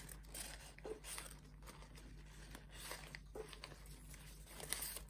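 Folded origami paper rustling and crinkling in faint, scattered crackles as paper units are pushed and slotted together into a modular kusudama ball.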